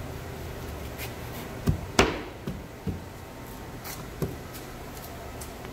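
Melamine-faced particleboard cabinet panels knocking against each other and the table as they are fitted together by hand: a string of hard knocks, the loudest about two seconds in. A steady low hum runs underneath.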